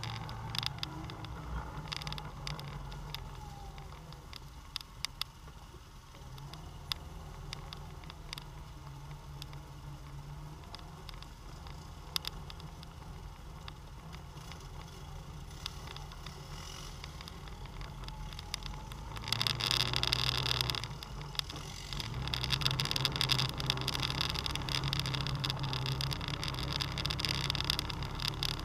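ATV engine running at low speed along a rough dirt trail, with scattered knocks and rattles as the machine bounces over bumps. The engine grows louder about two-thirds of the way through.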